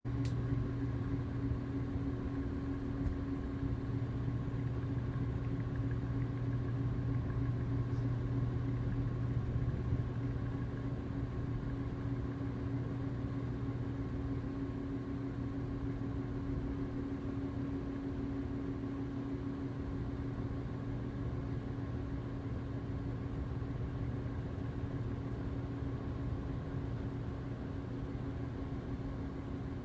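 Ceiling fan motor humming steadily, recorded close up, with a low hum and a higher steady tone over a soft rush of moving air.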